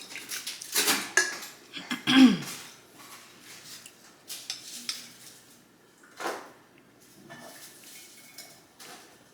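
Eating utensils clinking and scraping against dishes and bowls in a series of short, irregular knocks, the loudest about two seconds in.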